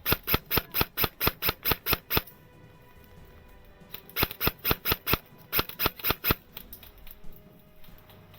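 Airsoft rifle fired by the scope-mounted camera's user in two rapid strings of sharp shots, about five a second, with a pause of about two seconds between them. Faint background music underneath.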